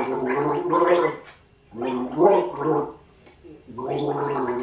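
A man gargling a mouthful of water while singing a song's tune through it, in three phrases with short breaks between them.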